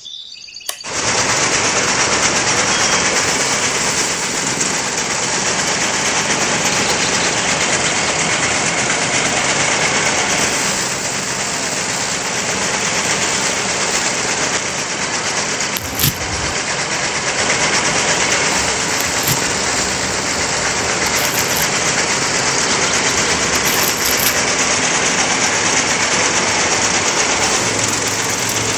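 Miniature belt-driven thresher with a small electric motor, switched on about a second in and then running with a loud, steady rattling whir.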